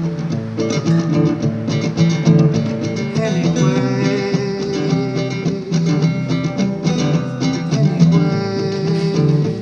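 Acoustic guitar strummed in a steady rhythm: an instrumental passage of a live song, with no singing.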